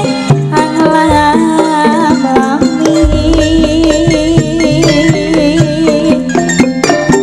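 Live campursari music: a Javanese ensemble with wavering melody lines and frequent sharp drum strokes. A deep low note sounds underneath from about three seconds in.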